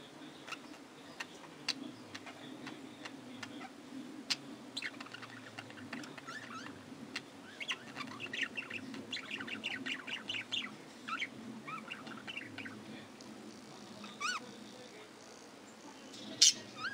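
Budgerigars chirping and chattering: scattered short chirps, a busy run of rapid warbling in the middle, and one loud chirp near the end.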